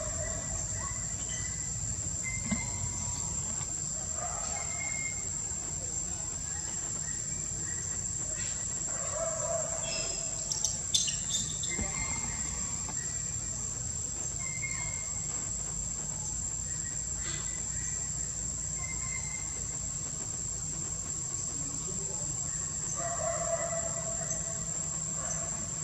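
Outdoor ambience under a steady high-pitched insect drone, with scattered short bird-like calls and a low background rumble; a few brief clicks sound about eleven seconds in.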